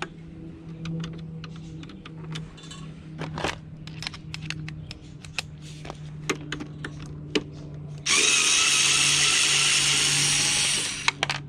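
Light clicks and knocks of bits and tools being handled, then a small cordless screwdriver motor running steadily for about three seconds before stopping abruptly near the end.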